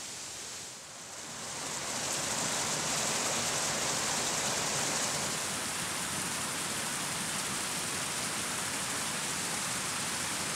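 Rushing water of a cascading stream: a steady hiss that dips briefly about a second in and then runs fuller.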